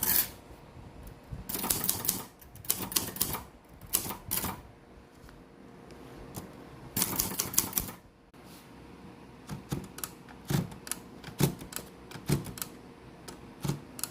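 1970s typewriter keys striking in quick clattering runs of clacks, then slower, single keystrokes in the second half.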